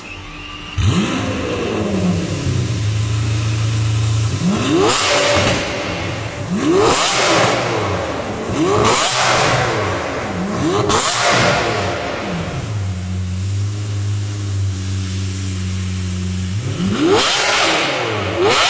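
Lamborghini Aventador SV's V12 running through an Armytrix titanium valvetronic exhaust. It comes in loudly about a second in with a flare that settles to idle, then is revved in sharp blips about two seconds apart. It drops back to a steady idle and is revved again near the end.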